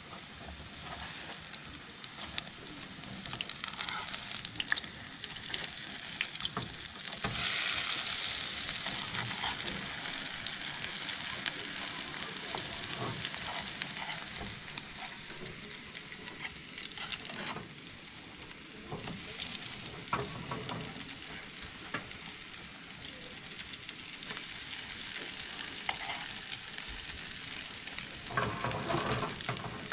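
Food frying in a pan, sizzling steadily, with a utensil stirring and clicking against the pan; the sizzle swells louder about seven seconds in.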